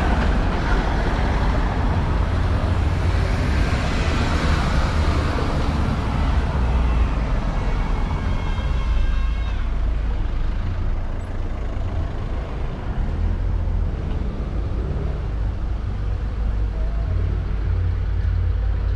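Road traffic on a cobbled town street: vehicles driving by, over a steady low rumble, loudest in the first few seconds. A brief high-pitched tone sounds about eight seconds in.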